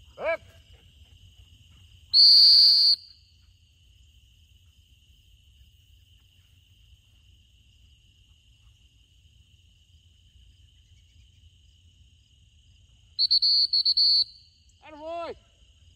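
Dog-training whistle: one long blast about two seconds in, then a quick series of short blasts a little after thirteen seconds. Steady insect chirring from crickets runs underneath, with a few short falling calls near the start and end.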